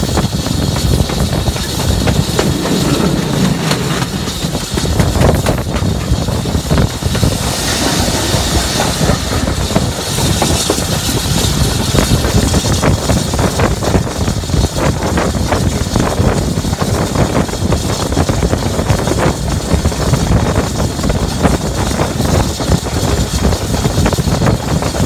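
BR Standard Class 4MT 2-6-4T tank locomotive working under steam: a steady train of exhaust beats with hissing steam and the clatter of wheels on rail joints.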